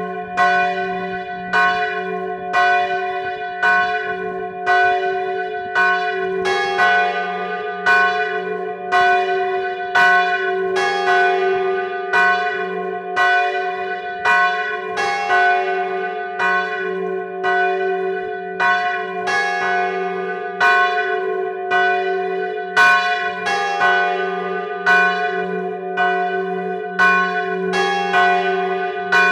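Church bells ringing a death knell (glas): the large bell swinging with its clapper striking, while two smaller bells are struck alternately. Strokes come steadily a little under a second apart, and the bells' ring hangs on between them.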